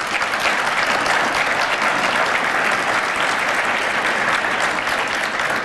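Audience applauding in a large hall: a steady wash of many hands clapping that holds through and starts to fade near the end.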